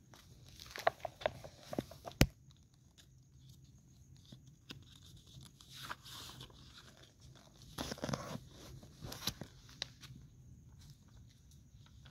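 Paper posters being handled: irregular rustling and crinkling of sheets, with a cluster of sharp clicks early on, the loudest a single sharp click about two seconds in, and longer rustling bursts around the middle and again later.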